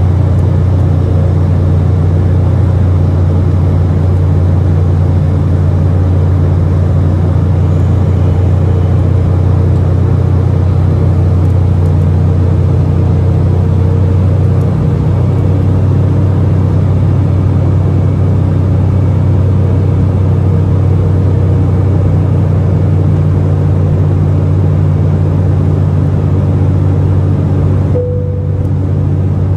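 Cabin noise of an Embraer E190 airliner in flight after takeoff: its GE CF34-10E turbofan engines and the airflow, heard from inside the cabin as a steady deep rumble with a faint steady hum above it. The level dips slightly near the end.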